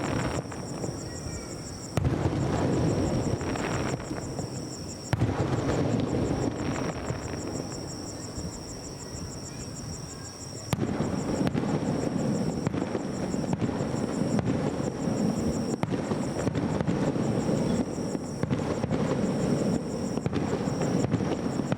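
Aerial firework shells bursting. Sudden booms come about 2, 5 and 11 seconds in, each with a rumbling tail, then a dense run of crackling bursts through the rest.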